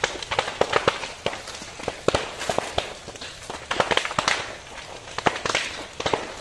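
Burning brush and undergrowth crackling, with frequent sharp, irregular pops and cracks and patches of hissing between them.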